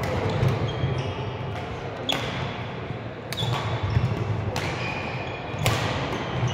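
Badminton rally: rackets striking the shuttlecock in sharp cracks, five hits about a second apart, over low hall noise.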